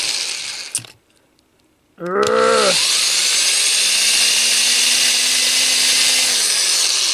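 Power drill with a small bit boring into a statue's base. It stops just under a second in, and after about a second's pause spins up again with a rising whine and drills on steadily.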